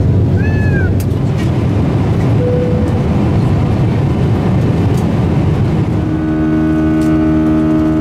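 Steady airliner cabin noise with two short electronic seatbelt-sign chimes. The first, from an Embraer E190, is a high tone that rises and falls about half a second in; the second is a lower, steady tone about two and a half seconds in. From about six seconds a steady droning hum joins the cabin noise.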